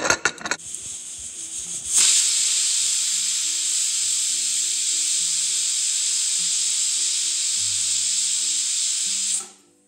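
Pressure cooker whistle: steam hissing out under the lifted weight. It builds over the first two seconds, holds loud and steady, then stops abruptly near the end. The whistle is the sign that the cooker is at full pressure, and the rice is timed by counting two of them.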